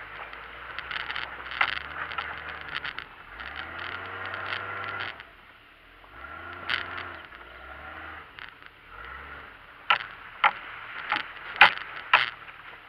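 Jeep engine rising and falling in revs as it crawls along a muddy, snowy trail, with a steady crunching and splashing of the tyres on gravel and water. A run of sharp knocks and clunks from the vehicle comes near the end.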